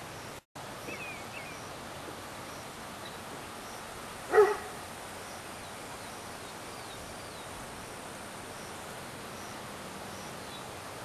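A single short dog bark about four seconds in, over a steady background hiss, with a few faint bird chirps.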